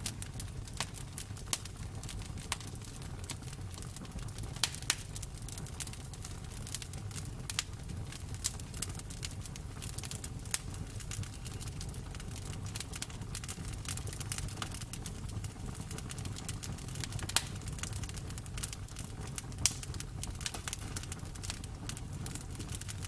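Campfire burning with a steady low rumble and irregular crackles and sharp pops from the wood, a few of them louder.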